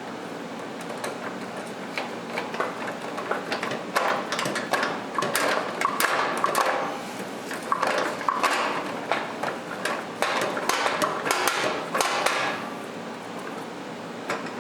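A quick, irregular run of knocks, taps and clatter, like hand work on hard parts. It starts about a second in, is thickest between about four and twelve seconds in, then stops.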